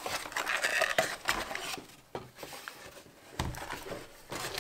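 Handling of a cardboard box and a plastic-wrapped 3D-printer filament spool: rustling and crinkling of the packaging for the first couple of seconds, then a knock about three and a half seconds in as something is set down on the wooden table.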